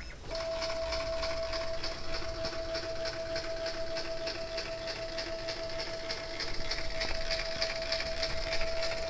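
Homemade CNC machine's axis motors whining at a steady pitch as the machine moves, with a fast, even rattle over the whine. The whine breaks off for an instant right at the start and then resumes.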